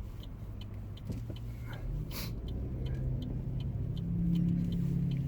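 A car running along the road, heard from inside: a steady low engine and road rumble whose engine note steps up in pitch, with a faint, regular light ticking.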